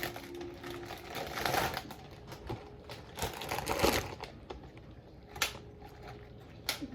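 Rustling and crinkling of snack packaging being handled, in several irregular bursts.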